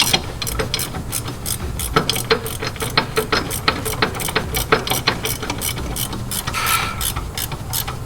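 Ratchet wrench clicking in quick repeated strokes, about three or four clicks a second, as a bracket bolt is tightened into the truck frame.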